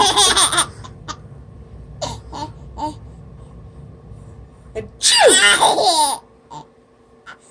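A baby laughing: a giggle trailing off at the start, then, about five seconds in, a louder burst where the baby fakes an "achoo" sneeze and breaks into laughter.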